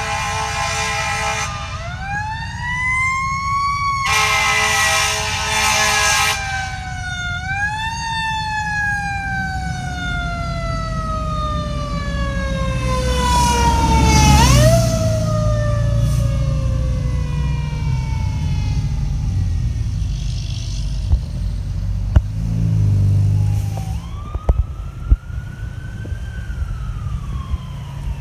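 Fire engine sounding its air horns in two steady blasts, between and after which its siren winds up quickly and falls away slowly in long glides, spun up again twice. The siren is loudest with a low engine rumble about halfway through as the truck goes by. Near the end another siren starts, rising and then falling.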